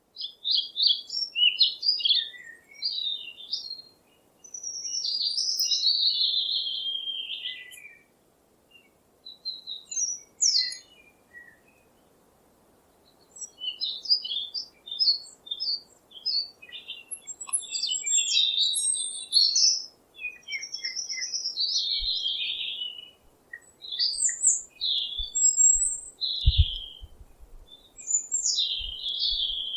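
Birds singing: bursts of high chirps and warbled phrases, broken by a couple of short pauses. A few low thumps come near the end.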